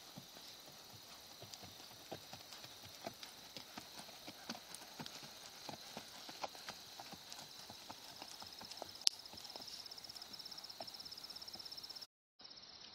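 A horse's hooves striking soft sand arena footing, an uneven run of muffled thuds as it is ridden at a lope and then a walk. Behind them is a steady high-pitched trill that turns into a fast, even pulsing about two-thirds of the way through. The sound cuts out near the end.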